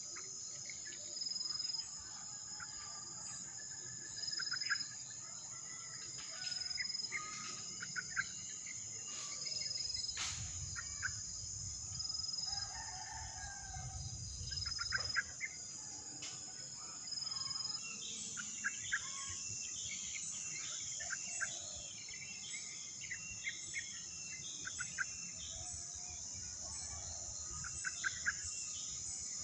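Steady, high-pitched trilling of an insect chorus, with short bird chirps and calls scattered through, some in quick runs.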